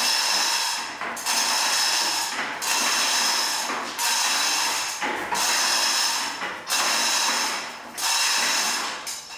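Hand chain hoist being worked to lift a heavy load. The chain rattles and the ratchet clicks in repeated pulls, about seven bursts each a little over a second long, with short breaks between them.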